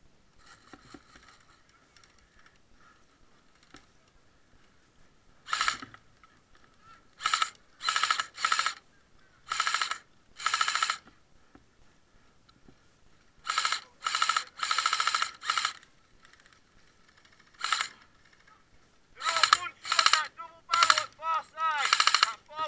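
Airsoft guns firing about a dozen short full-auto bursts, each under a second, the first about five seconds in and coming closer together near the end.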